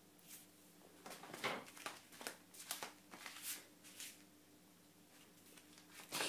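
Light scratchy taps and scrapes of a cat's paw and claws on a hard tile floor as it bats at a cockroach, a quick run of them over a few seconds and one sharper tap near the end.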